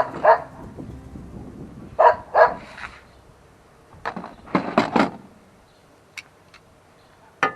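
A dog barking in short, sharp barks, about ten in all, grouped in quick pairs and runs.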